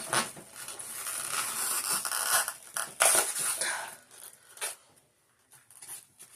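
Old styrofoam packing and a cardboard box being pulled apart by hand: crunching, crackling and tearing, loudest in a burst about three seconds in, then nearly quiet for the last couple of seconds.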